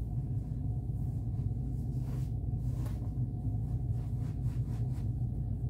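Steady low hum of a cabin's room tone, with a few faint soft rustles of a terry towel being rolled up by hand on a bed.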